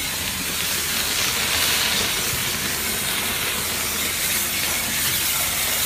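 Shotcrete nozzle spraying concrete with compressed air: a steady hiss.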